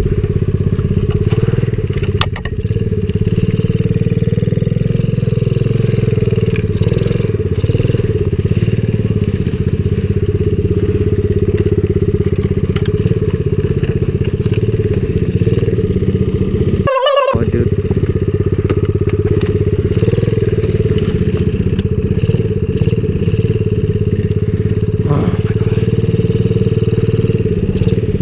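Coolster 70cc pit bike's small single-cylinder four-stroke engine running at a low, fairly steady speed, with a few sharp cracks of brush. The engine sound drops out for a fraction of a second about 17 seconds in.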